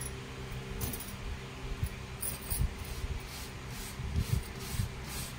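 A brush scrubbing a tarnished silver chain coated in cleaning paste: after a couple of quieter seconds, short rubbing strokes come about two a second.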